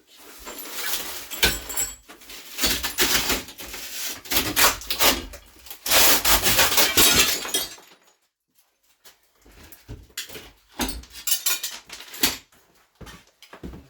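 Broken glass and bathroom demolition debris clattering and scraping as it is scooped and handled, in dense bursts for about eight seconds. After a short pause come scattered sharp clinks and knocks.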